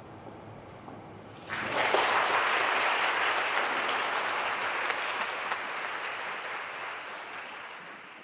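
Audience applause that breaks out suddenly about a second and a half in, after a short hush, then slowly fades.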